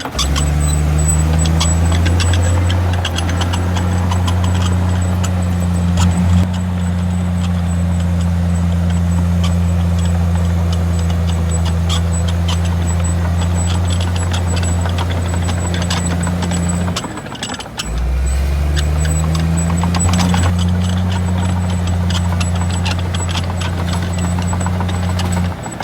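Bulldozer's heavy diesel engine running under load, with rapid metallic clanking over it. About two-thirds of the way in the engine note briefly drops, then rises again as it picks back up.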